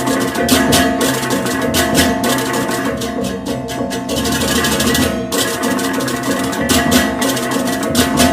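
Balinese gamelan music: fast, dense metallic strikes over steady ringing pitched tones, with drums underneath.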